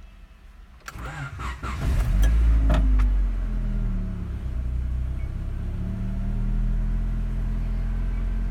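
1992 Honda Accord's four-cylinder engine cold-started: the starter cranks briefly about a second in, the engine catches about two seconds in and flares loudly, then its speed drops and settles into a steady cold fast idle.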